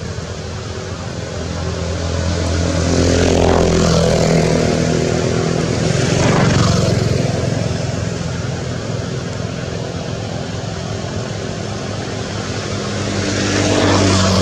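Engine noise from motor vehicles passing on a nearby road: a steady hum that swells three times as vehicles go by.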